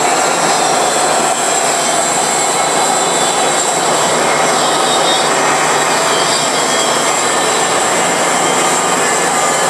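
Bandsaw running with its blade cutting dry through a thick forged aluminum part as the powered table feeds it slowly. The sound is a steady, loud cutting noise with a thin high whine over it.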